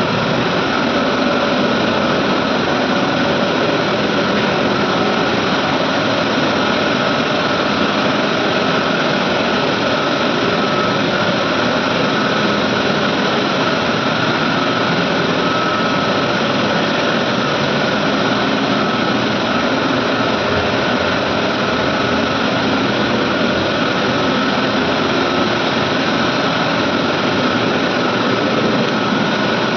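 Medical air compressor running steadily: an even machine noise with a faint steady whine on top, unchanging throughout.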